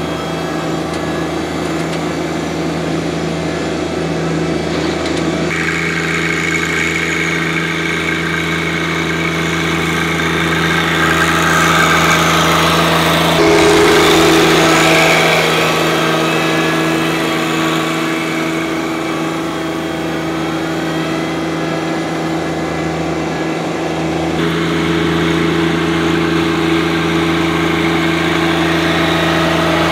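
John Deere 1025R compact tractor's three-cylinder diesel running steadily under way, louder as the tractor passes close by about halfway through.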